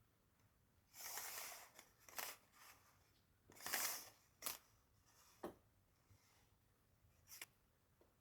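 Several short scraping rustles and sharp light clicks at irregular intervals, the longest about a second in and near the middle, with faint room tone between them.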